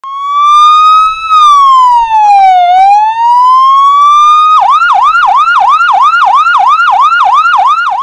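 Electronic emergency-vehicle siren: a slow wail that rises, falls and rises again, then about halfway through switches to a fast yelp of about four sweeps a second.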